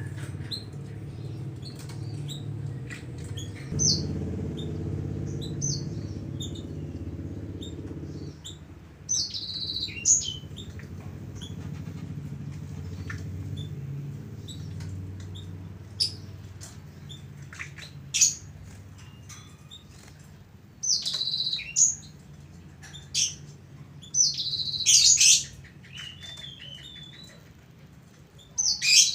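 Bird chirping: short, high calls every few seconds, in clusters around the middle and near the end, over a low steady hum.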